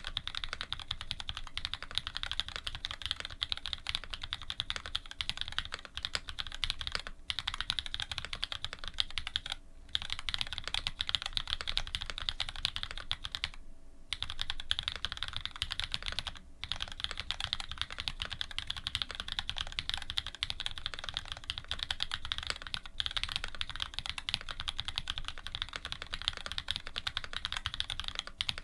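Fast, continuous typing on a custom mechanical keyboard (Dolphin linger re, aluminium plate) with lubed linear Cherry Black switches fitted with Cream stems and GMK keycaps, the keystrokes clacking densely with a few brief pauses.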